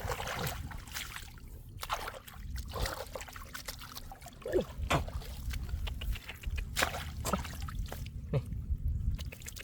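Shallow floodwater splashing and sloshing, with many scattered sharp splashes over a low steady rumble.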